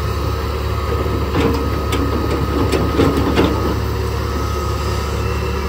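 Heavy diesel engine of an excavator running steadily, with a few sharp knocks in the middle.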